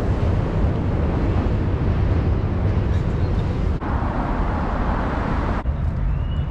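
Steady outdoor city ambience, a constant low rumble with a noisy hiss above it, changing suddenly about four seconds in and again a little later where shots are cut together.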